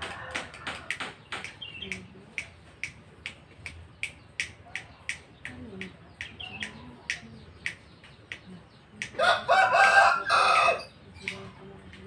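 A caged lovebird gives short, sharp chirps about two or three times a second. About nine seconds in, a rooster crows loudly in two parts for about a second and a half.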